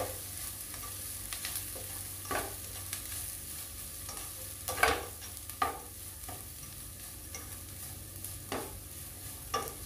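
Slotted spatula stirring and scraping grated coconut and onions around a nonstick pan over a light sizzle. There are a handful of separate scrapes, the sharpest about five seconds in.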